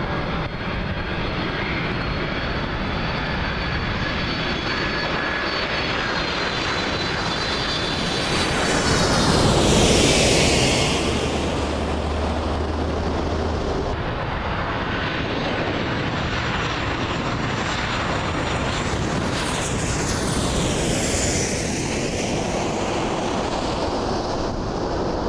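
Twin-engine jet airliner passing low overhead on landing approach: engine whine and roar build to a peak about ten seconds in, then fade. A truck's low engine hum passes close by just after the peak, and a second, softer sweeping pass comes about twenty seconds in.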